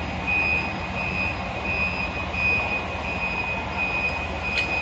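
Double-decker coach's diesel engine running as the bus pulls forward and turns, with a high beep repeating about every two-thirds of a second.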